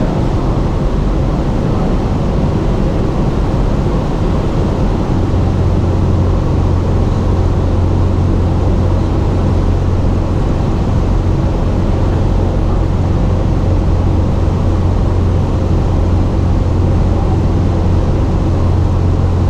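Cessna 172's piston engine and propeller droning steadily, heard inside the cabin. The low hum grows stronger about five seconds in.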